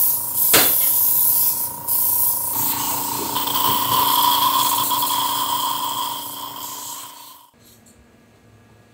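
Airbrush spray gun hissing as it sprays colouring onto cakes, with the steady whine of its small air compressor. The hiss breaks off briefly about two seconds in, then fades and cuts off about seven and a half seconds in.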